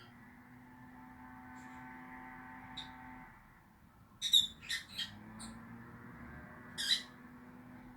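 Pet lovebirds giving short, sharp high-pitched chirps: a few faint ones early, a quick cluster of four or five a little past the middle, and one more near the end, over a steady low hum.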